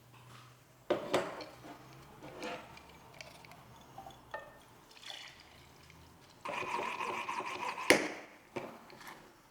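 Household handling sounds: several sharp knocks and clinks, then a run of liquid, like pouring or a tap running, for about a second and a half near the end, cut off by a knock.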